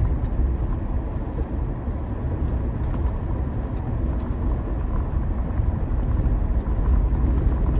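Mahindra Thar driving on a rough unpaved road: a steady low rumble of engine and tyres.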